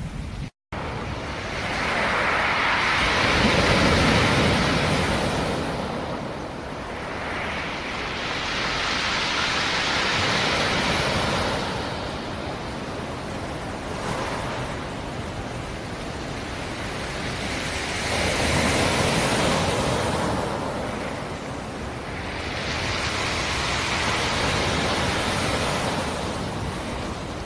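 Black Sea surf: waves rolling in and breaking on the shore about four times, each a swelling rush of noise that ebbs away before the next, with a split-second gap of silence near the start.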